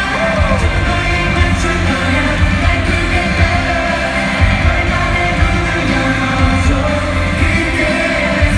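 Live K-pop concert music heard from the audience: a singer over a loud amplified band track with a heavy bass beat.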